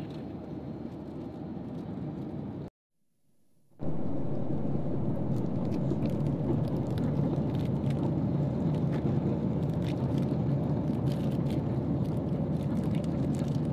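Steady airliner cabin noise, a low rushing drone from the engines and airflow. It cuts out for about a second near the start, then comes back a little louder, with faint light clicks here and there.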